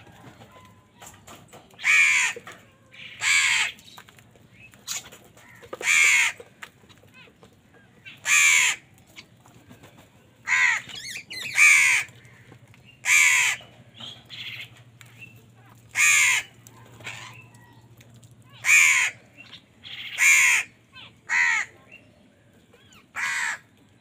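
House crows cawing: about a dozen harsh single caws from several birds, coming at uneven intervals of one to three seconds.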